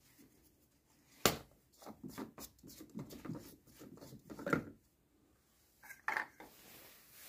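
Plastic coolant expansion tank cap being unscrewed by hand through a rag: a sharp click about a second in, then a run of short rustles and clicks, and one more near the end.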